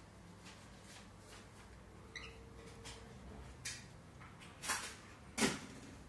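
A cockatiel gives one short, soft, wavering chirp about two seconds in. A few brief scrapes and knocks follow, the loudest near the end.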